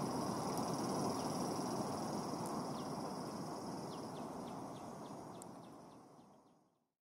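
Outdoor ambience: a steady rushing noise with insects shrilling in two steady high tones, and from about halfway short falling chirps a few times a second. The whole sound fades out to silence near the end.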